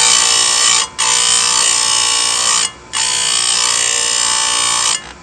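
Chainsaw chain grinder's abrasive wheel grinding the steel cutter tooth of a chainsaw chain, a loud, steady, high-pitched grinding whine. It cuts out briefly about a second in, again near three seconds, and just before the end.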